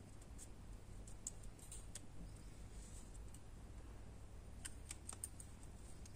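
Faint, scattered clicks and ticks of thin metal wire being twisted around small wooden craft sticks, with a quick cluster of clicks near the end.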